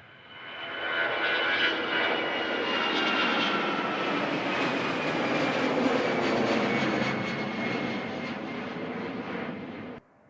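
Airliner's engines on a close takeoff pass. The noise swells up within the first second and stays loud, with high whining tones sliding slowly downward as the aircraft goes by, then cuts off abruptly near the end.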